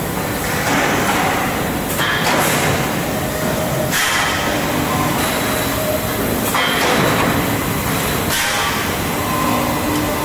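Welded steel pipe production line running with a steady mechanical din, broken every two seconds or so by a sharp metallic clank of steel pipes on the conveyor and runout table.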